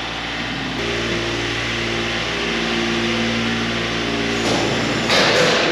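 Engine of a piece of heavy construction equipment running at a steady speed, its pitch holding for several seconds, then giving way to a louder rush of noise near the end.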